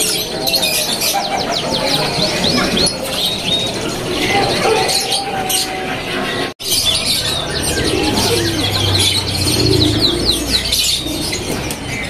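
Several caged domestic canaries singing, with rapid trills and quick repeated chirps. These are birds in full singing form.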